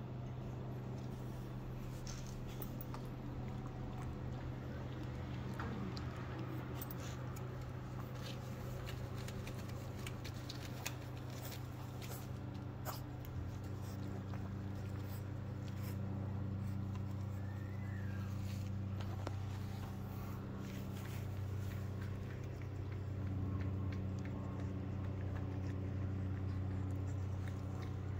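A steady low hum, deepening a little about halfway through, under scattered faint clicks and small sounds from a young bully puppy shuffling on the carpeted pen floor and eating from a plastic bowl.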